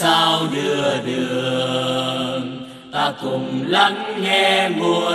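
Vocal music: singing in long held notes with short breaks between phrases.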